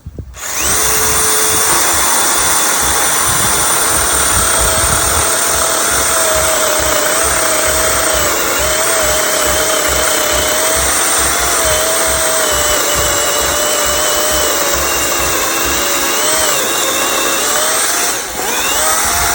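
DeWalt 20-inch battery-powered electric chainsaw running steadily through a last cut in a tree trunk, its motor whine wavering in pitch as the chain loads in the wood. It starts about half a second in and dips briefly near the end.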